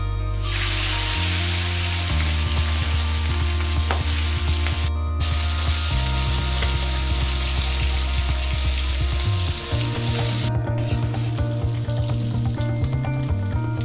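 Food sizzling as it fries in a pan, starting about half a second in, breaking off briefly about five seconds in, and dropping away about three seconds before the end. Background music with sustained low notes plays throughout.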